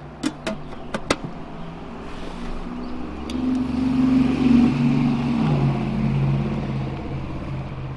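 A few sharp metal clinks as the aluminium lid is set on a roaster pan, then a passing road vehicle's engine drone that builds to a peak around the middle and slowly eases off.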